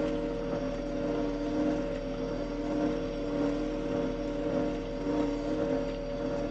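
Combine harvester running steadily: a constant engine and machinery drone with a steady hum and no change in speed.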